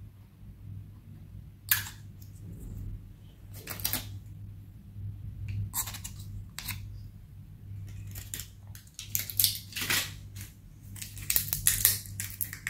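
Scattered clicks and crinkles of a plastic bottle being handled by hand and its foil seal picked at, coming more often toward the end, over a steady low hum.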